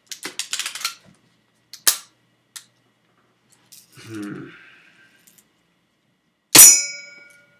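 BB gun being handled and fired: a run of rattling clicks at the start and a sharp click about two seconds in, then one loud, sharp shot near the end, followed by a ring that fades.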